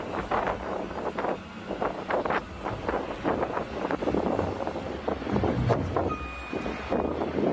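Vehicle noise with irregular swishes and rumbles, and from about six seconds in a steady electronic beep sounding and pausing, like a vehicle's reversing alarm.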